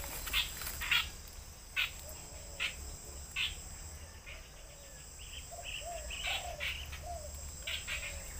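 Steady high-pitched insect chorus, with a bird calling over it: short chirps about once a second at first, then a run of lower, curving notes in the second half.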